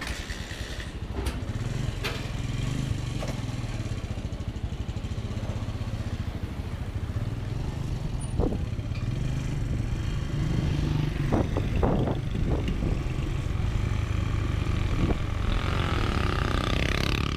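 Motorcycle engine running steadily under way, with a few knocks and rattles in the middle and a rising whine near the end.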